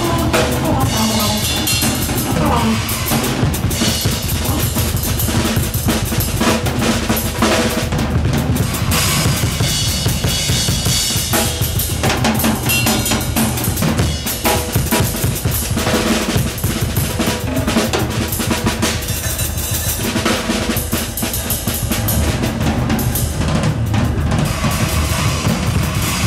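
Drum kit played live: dense, continuous hits on bass drum, snare, toms and cymbals, with cymbal wash throughout.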